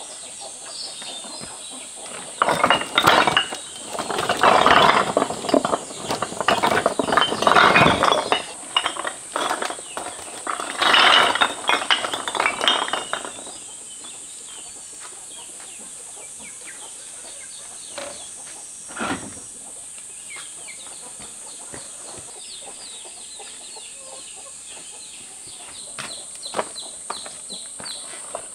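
Red clay bricks clattering and knocking against one another as they are tipped out of a woven basket and handled onto a pile, for about ten seconds. Afterwards a steady high hiss remains, with one more knock near the middle.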